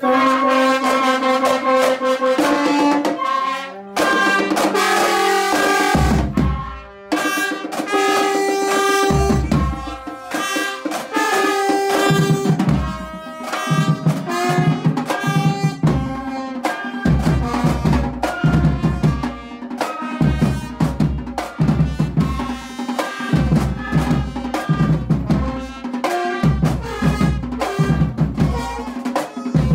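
High school marching band playing together: trumpets, trombones, flute and sousaphone open on a long held chord, drums come in about six seconds in, and a steady drum beat drives the tune from there.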